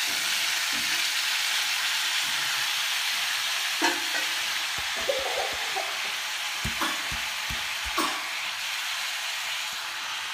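Shredded cabbage sizzling in hot oil in a wok, a steady hiss that eases slightly over time. A few light knocks and taps come about halfway through.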